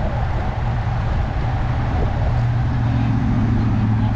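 Steady road traffic noise, with a low engine hum that grows louder in the second half as a motor vehicle comes close.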